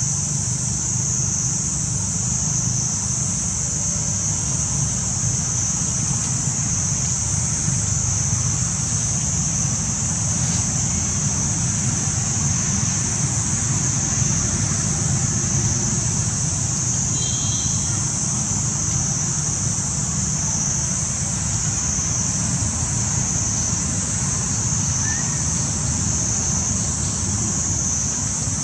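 Steady outdoor ambience: a constant high-pitched insect drone over a low, even rumble, with one brief high chirp about halfway through.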